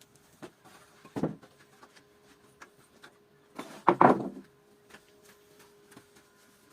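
Wooden pieces being handled: light clicks and knocks, a sharper knock about a second in and a louder clattering knock about four seconds in, over a faint steady hum.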